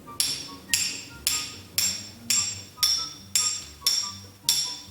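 A household object struck over and over in a steady rhythm, about two clinks a second, each ringing briefly like a glass or a pot: a sound effect made for every step of a character's walk.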